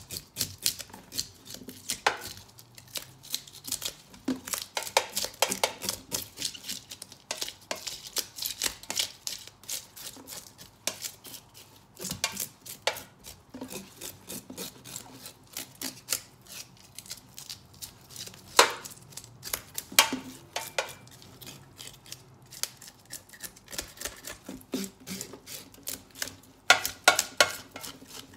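A knife scraping the scales off a whole hilsa fish in a stainless-steel sink: quick, uneven rasping strokes in bursts, with a few louder strokes near the end.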